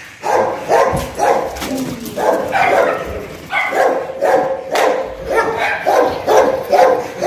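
A dog barking over and over, about two barks a second, without a break.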